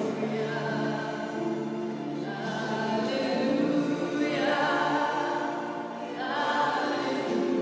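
Several voices singing a slow hymn in held notes.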